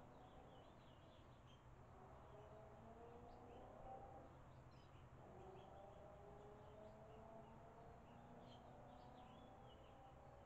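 Faint bird chirps: many short, high calls scattered throughout, over a steady low hum.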